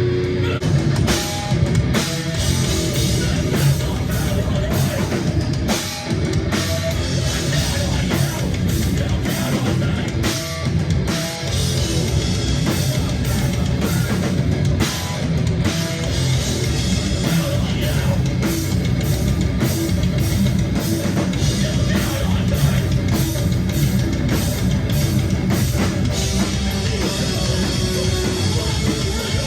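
A band playing heavy rock live: loud electric guitars and bass over a pounding drum kit, with no pauses.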